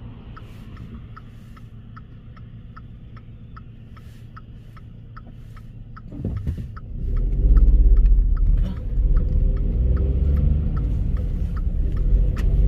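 A car's turn-signal indicator ticking steadily inside the cabin, a few ticks a second. About six seconds in, a car passes close by and the car pulls away, so engine and road rumble grow loud and stay loud.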